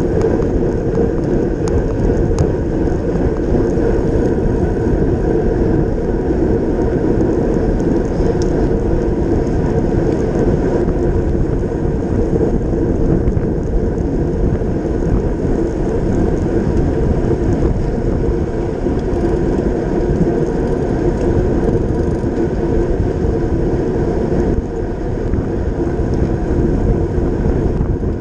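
Steady rumble of wind on the microphone and road-bike tyres on asphalt, heard from a camera on a racing bicycle at speed, with a few light clicks in the first couple of seconds.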